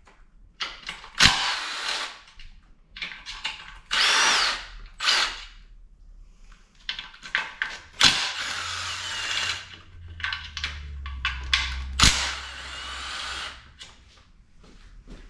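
Milwaukee cordless electric power tool running in a series of short bursts, a couple lasting a second or two, with a whine that rises and falls as it spins fasteners out during an engine teardown.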